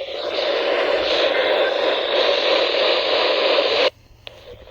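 Weather radio receiver putting out loud, steady static hiss with no voice or tone in it, which cuts off abruptly about four seconds in.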